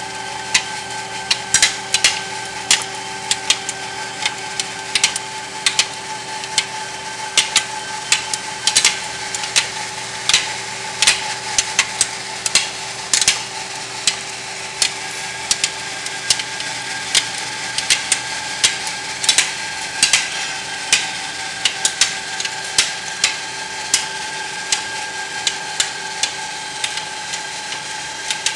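Tee-bar roll forming machine running steadily: a constant hum with a few fixed tones, over which come frequent sharp clicks and ticks at irregular intervals, a few each second.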